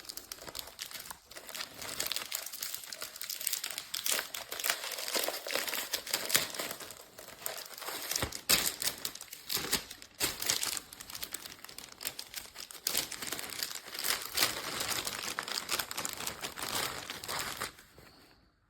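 Packaging crinkling and rustling as it is handled and opened, a dense run of crackles with some sharp clicks, which stops shortly before the end.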